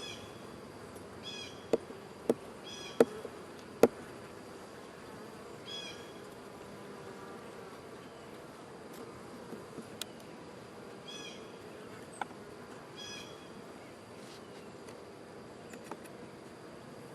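Swarm of honey bees buzzing around an open hive, a steady hum throughout. Four sharp knocks come in the first four seconds, the last two the loudest, with a few fainter clicks later.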